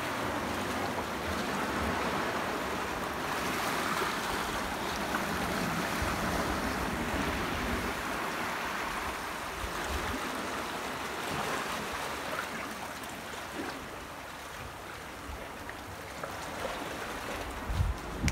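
Small waves washing and sloshing into a rocky tide pool between barnacle-covered boulders: a steady watery hiss with irregular low rumbling underneath. Two sharp knocks come near the end.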